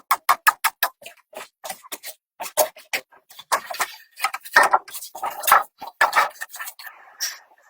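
A fast run of sharp clicks or knocks, about four a second, giving way to longer, irregular rasping strokes.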